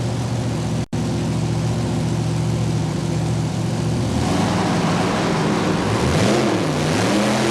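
Modified pulling tractor's engines running at a steady idle, then revving, the pitch dipping and rising, from about four seconds in. The sound cuts out for an instant just under a second in.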